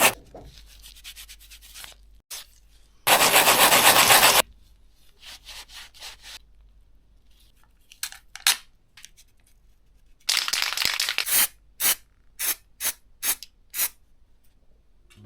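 Abrasive rubbing on old bolts whose chrome plating is gone, cleaning the corrosion off in bursts: one long stretch about three seconds in, then a run of short, quick strokes near the end.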